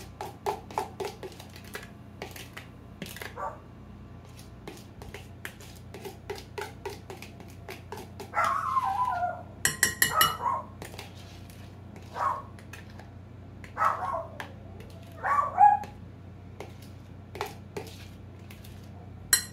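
A dog barking again and again, the loudest barks coming from about eight seconds in, some drawn out and falling in pitch. Light clinks of a spoon in a mixing bowl sound between the barks.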